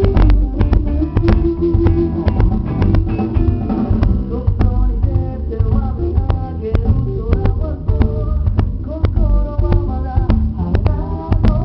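Live band playing: drum kit, bass guitar and electric guitars together, the drums keeping a steady beat under the guitar lines.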